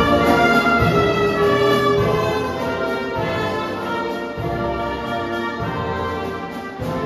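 Church orchestra with prominent brass playing sustained chords, loud at first and easing slightly.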